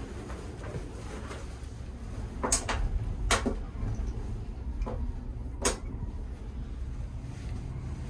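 Steady low rumble inside a moving gondola cabin, with a handful of sharp clicks and knocks between about two and six seconds in as a baby carrier's straps and plastic buckle are handled.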